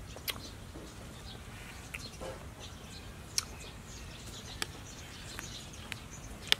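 A metal spoon clinks sharply against a ceramic bowl about seven times as someone eats a dessert. Faint birds chirp in the background.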